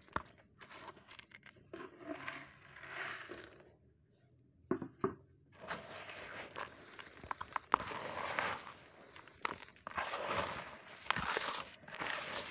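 Hands crumbling and rubbing dry sandy clay lumps and dust: gritty crunching and crackling with sand pouring through the fingers, dropping to a brief lull about four seconds in.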